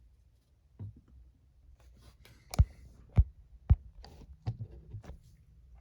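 Sharp plastic clicks and taps from handling a Beast Wars Airhammer action figure, about six in all, the three loudest in the middle about half a second apart.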